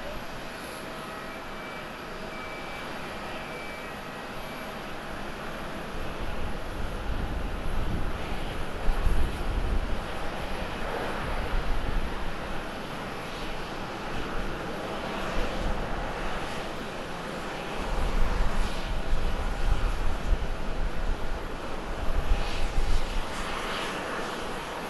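Boeing 737-800's CFM56 jet engines as the airliner lands and rolls out on the runway. A steady hum swells about six seconds in into a louder, uneven rumble with surging lows.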